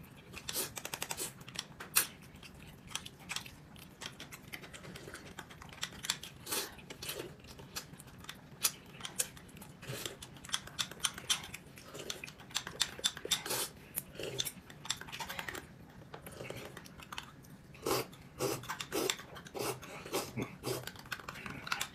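Someone eating: chewing and biting with irregular crunchy clicks, and now and then utensils clinking against dishes.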